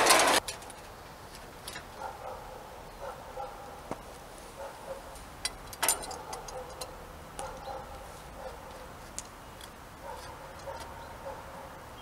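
A loud burst of crackling noise cuts off about half a second in. Then come scattered light metal clicks and clinks as a sliding gate's roller carriage is fitted and fastened to its steel base plate, with faint short pitched sounds in the background.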